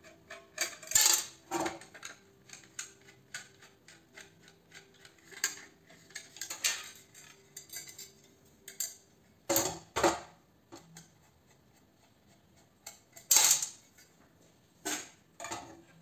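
Metal clicks, scrapes and clatters of a screwdriver working on a light fitting and its metal bracket and housing being handled while it is stripped for scrap. The loudest knocks come about a second in, around ten seconds in and about thirteen seconds in.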